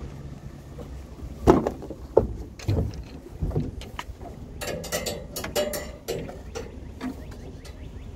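Irregular metal knocks and clanks as a broken satellite dish is handled. The loudest knock comes about a second and a half in, and a quick run of ringing clanks follows around the middle.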